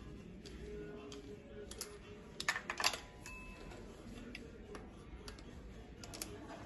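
Small metal clicks and taps from a compression tester's hose and brass adapter being handled and fitted into the next cylinder of a diesel engine, with a louder cluster of clicks about two and a half seconds in.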